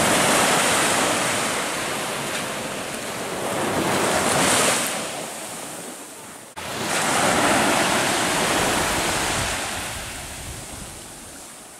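Surf breaking and washing up the beach, with wind buffeting the microphone. The rush swells and fades twice, cutting off abruptly a little past halfway and coming straight back.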